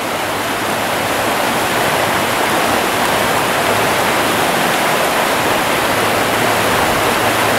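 Steady rush of a shallow trout stream flowing over rocks and riffles.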